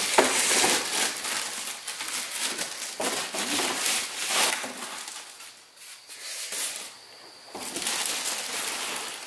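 Irregular rustling and crunching handling noise. It dies down about five and a half seconds in and starts again about two seconds later.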